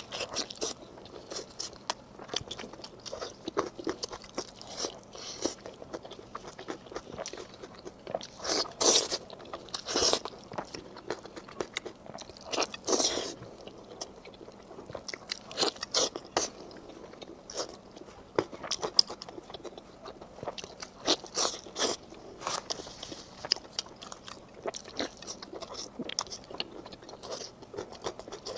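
A person eating close to the microphone: repeated bites, crunching and chewing in short, irregular clicks, with a few louder bites along the way.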